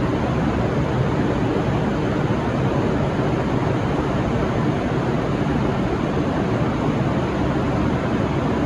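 Steady, even rumble and hiss of diesel train engines running, with no horn sounding.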